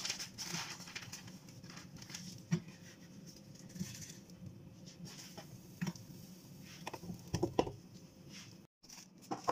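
Light handling sounds on an electric pizza maker: scattered soft taps and scrapes on its nonstick plate, then a couple of sharper knocks about seven and a half seconds in as its domed lid is closed.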